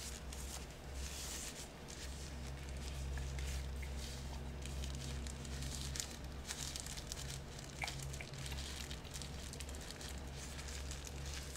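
Soft plastic being handled as an ASMR trigger: a dense run of small crinkles and crackles, over a faint steady low hum.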